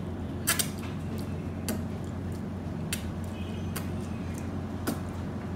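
Light clicks and clinks of dishes at a meal table while someone eats: about five short, separate clicks spread over the seconds, over a steady low hum.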